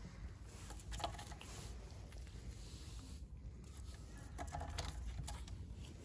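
Light scratching and tapping of a twig against a wooden bench as a cat paws and bites at it. The short rustles come in clusters, about a second in and again near five seconds, over a low steady rumble.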